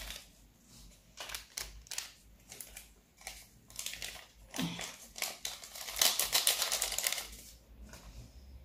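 Wire whisk beating batter in a plastic mixing bowl: irregular clicks and scrapes of the wires against the bowl, turning into a dense run of rapid strokes about six seconds in, then easing off.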